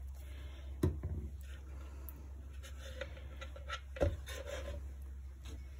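Faint handling sounds of a wooden painting board being gripped and tilted on a tabletop: a sharp click about a second in and a low knock about four seconds in, with soft rubbing between, over a steady low hum.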